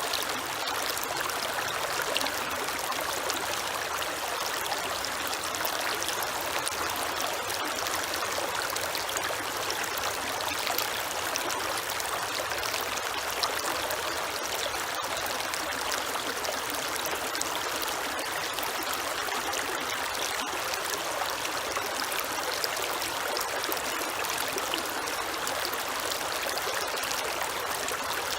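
Creek water flowing and trickling over stones in a steady, even rush with small splashes through it.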